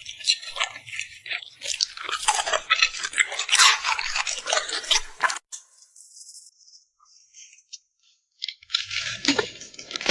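A dog chewing and crunching food: dense, rapid crunches for about five seconds that stop abruptly, a pause of about three seconds with only a few faint sounds, then crunching again near the end.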